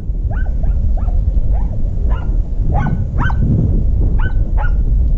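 Podengo hunting hounds giving tongue in short, high yelps, about ten of them at roughly two a second, as the pack works a rabbit's scent in the scrub. A steady low rumble lies underneath.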